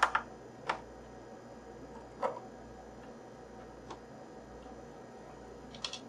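A handful of sharp, irregular clicks and taps from a screwdriver working screws out of an iMac G3's plastic case, the loudest just at the start and a double click near the end.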